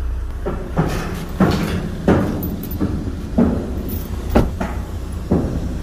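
An irregular series of about six sharp knocks, roughly a second apart, over a steady low rumble.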